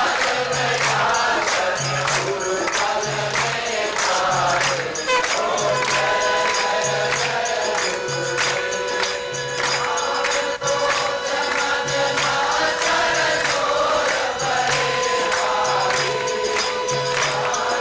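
Group singing of a devotional aarti hymn, with jingling hand percussion and a steady low beat. A long held note runs underneath from about six seconds in until near the end.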